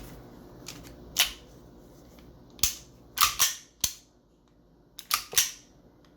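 G&G GTP9 gas blowback airsoft pistol being worked by hand after cleaning and lubrication: the slide is racked and snaps back into battery several times, giving sharp plastic-and-metal clacks, some in quick pairs. The action is running smoothly.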